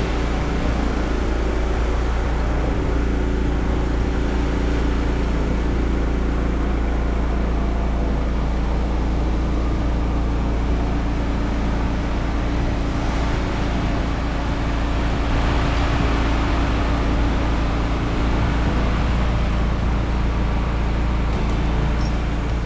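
Gas-engine pressure washer running steadily under load, with a hiss of water spraying over it.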